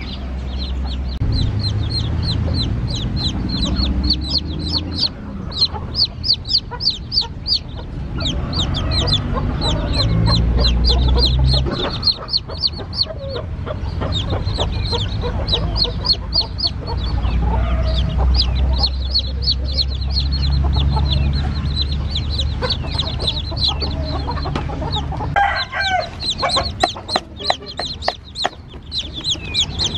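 A brood of newly hatched chicks peeping rapidly and continuously, short high-pitched falling peeps, over a low rumble. Near the end an adult hen calls briefly among them.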